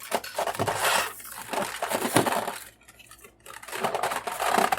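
Plastic toy packaging being handled, crinkling with small clicks and clinks, as figure parts are pulled out of a tray. Two spells of handling with a short pause about three seconds in.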